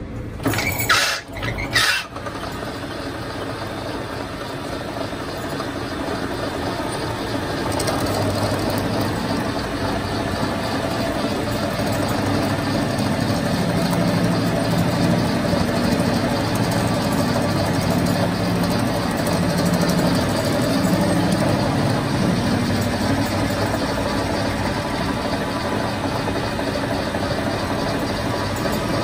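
Two loud knocks about a second in, then a metal lathe's motor and spindle running with a steady hum, turning a steel bar held in its chuck; the hum grows louder over the first several seconds and then holds steady.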